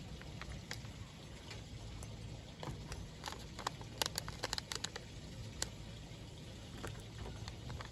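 Faint paper ticks and rustles of small foil star stickers being peeled off their backing sheet and pressed onto cardstock, with scattered clicks bunched around the middle, over a low steady background rumble.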